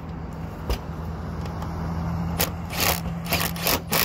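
An aluminium standing seam roof clamp being handled and positioned on the metal roof seam: a sharp click about three-quarters of a second in, then a quick run of scrapes and knocks of metal on metal from about two and a half seconds in, over a steady low hum.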